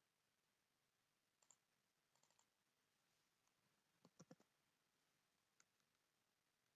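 Near silence broken by a few faint computer mouse clicks: one about a second and a half in, a pair around two seconds, a quick cluster of clicks just after four seconds, and a last one near the end.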